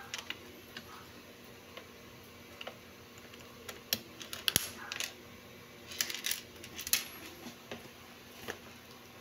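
Small metal parts of a Timex wristwatch being handled, giving irregular sharp clicks and taps, most of them bunched about four to seven seconds in.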